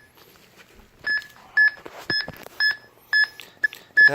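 Android phone's item-finder app beeping, short high beeps about twice a second; the rapid beeping signals that the Bluetooth tag in the lost item is close by. One beep at the very start, then a pause of about a second before the steady beeping resumes.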